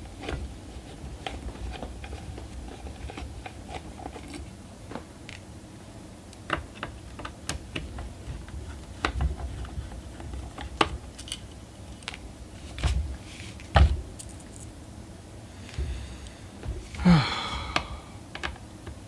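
Scattered small clicks and light knocks of screws being backed out of a graphics card's cooler with a screwdriver and set down, over a low rumble of handling on the bench. A short vocal sound falling in pitch comes near the end.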